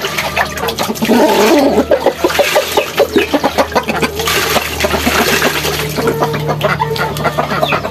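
Chickens clucking close by, mixed with water splashing and sloshing as plates are washed and rinsed by hand; the splashing is strongest about halfway through.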